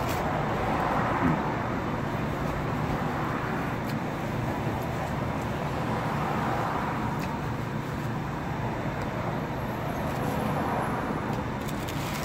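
Steady hum of road traffic.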